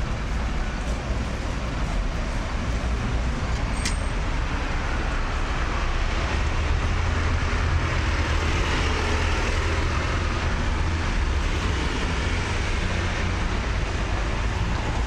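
Steady street-traffic noise with a low engine rumble from fire engines and other emergency vehicles standing with engines running, and a truck driving past about eight seconds in.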